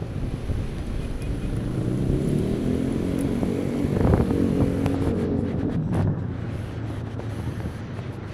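Wind buffeting the microphone and road rumble from a bicycle moving through traffic. A motor vehicle's engine passes close by, rising from about two seconds in, loudest around four seconds, then fading.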